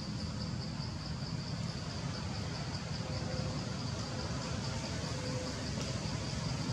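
Outdoor forest ambience: an insect trills high in a fast, even pulsing over a steady low rumble.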